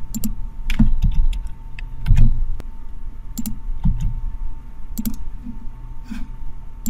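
Irregular clicks and dull knocks of a computer mouse and keyboard in use, over a faint steady hum.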